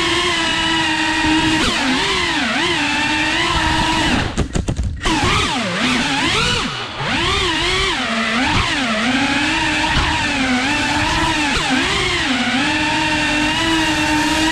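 FPV drone's electric motors and propellers whining, the pitch swinging up and down over and over with the throttle. A little after four seconds in the whine cuts out in a few quick stutters, and it dips again briefly near seven seconds.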